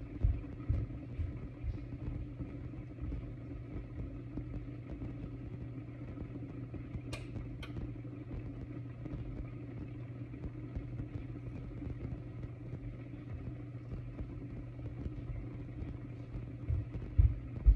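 Steady low hum of a running kitchen appliance, with two quick clicks about seven seconds in and a few low knocks near the start and end.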